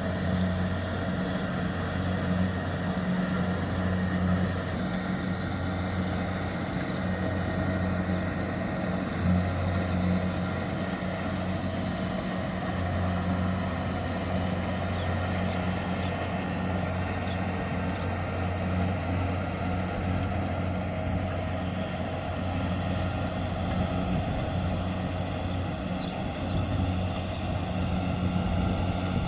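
Kubota DC-70 Plus combine harvester's diesel engine running steadily: a low, even drone that wavers slightly now and then.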